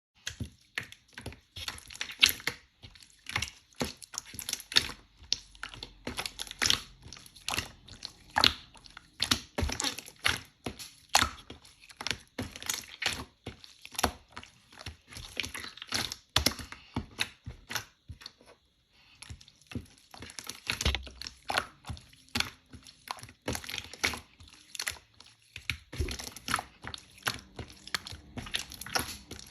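Hands working a slime, pressing, poking and stretching it, giving a dense, uneven run of small sticky clicks, pops and crackles, with a brief lull about two-thirds of the way through.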